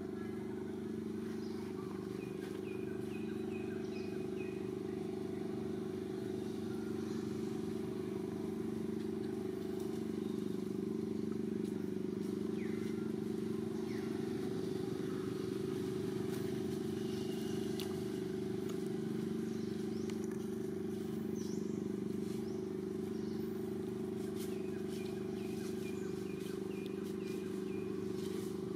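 A steady low motor drone. A few faint, short, high chirps sound about three seconds in and again near the end.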